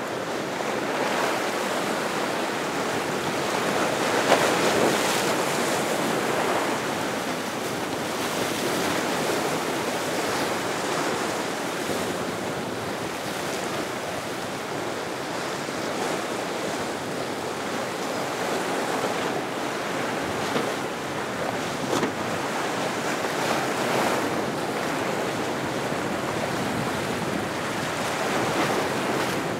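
Choppy ocean surf washing and breaking, with wind blowing across the microphone.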